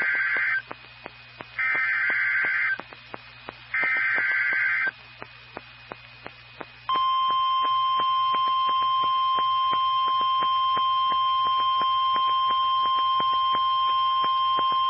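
NOAA Weather Radio Emergency Alert System signal: three short bursts of screechy SAME digital header tones, the first already under way. After a gap of about two seconds, the steady 1050 Hz warning alarm tone begins about seven seconds in, with faint clicks of radio static throughout.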